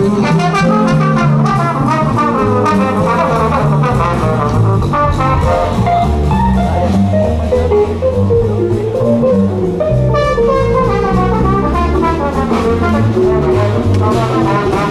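Live jazz band playing loudly, a melodic lead line running over a moving bass line.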